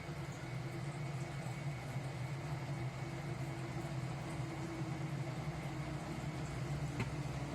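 A steady low mechanical hum, like a running motor or fan, with one sharp click near the end.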